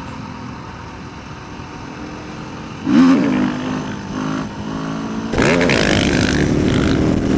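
Motorcycle engine running low, then revved sharply about three seconds in and again a little past five seconds, after which it holds steady at higher revs.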